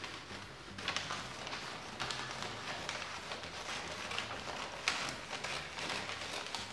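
Brown kraft wrapping paper rustling and crackling as it is handled and cut with scissors, with sharper crinkles about a second in and again near five seconds.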